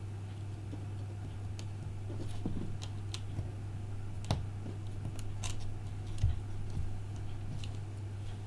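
Scattered light clicks and taps of small repair tools and phone parts being handled, with a louder knock about six seconds in, over a steady low hum.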